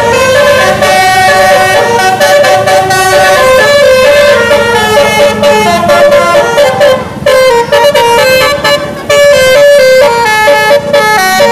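Bus telolet musical air horn on a Sumber Jaya bus playing a tune: a run of held notes stepping up and down, breaking into quick short notes in the second half.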